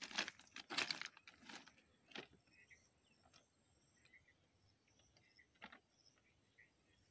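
Footsteps crunching on loose railway ballast stones, several steps in the first second and a half, then only a few faint isolated clicks.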